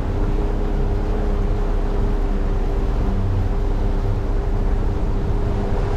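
Motorboat's engine running steadily under way, a steady whine over a low rumble of water and hull.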